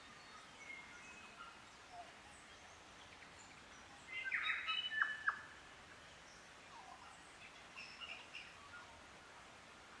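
New Zealand native forest birds calling over a faint steady background hiss: scattered short, high chirps, with a louder burst of calls and a couple of sharp clicks from about four to five and a half seconds in.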